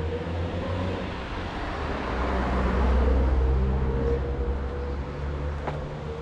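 A car passing on the street, its engine and tyre noise swelling to a peak about halfway through and then fading, over a steady low engine rumble.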